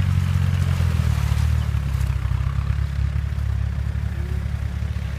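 Off-road vehicle's engine running steadily at an even, low pitch, with a little clatter over it.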